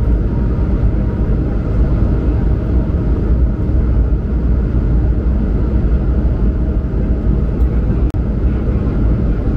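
Cabin noise of an Airbus A220-100 climbing after takeoff: the engines at climb power and rushing airflow make a loud, steady, low rumble, with a momentary dip about eight seconds in.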